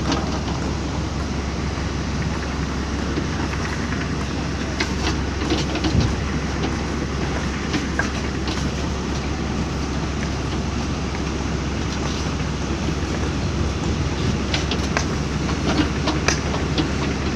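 Backhoe loader's diesel engine running steadily, with scattered clanks and knocks over the rumble.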